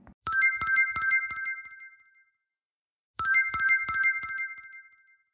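Short bright bell-like jingle, a quick run of ringing notes that fades out, played twice with a pause of about a second between.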